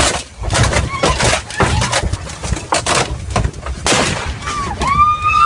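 Loud, irregular knocks and crashes, the kind of banging an elephant makes striking a vehicle during an attack. Near the end a high cry rises and is held.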